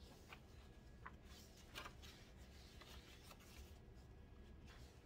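Faint rustles and soft taps of thick paper pages being handled and turned in a handmade journal, a few scattered strokes over a low steady hum.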